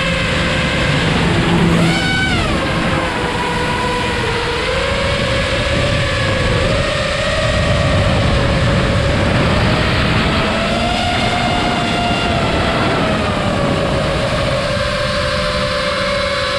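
FPV quadcopter's electric motors and propellers whining, the pitch gliding up and down with the throttle. About two seconds in, a quick punch of throttle sends the whine sharply up and back down.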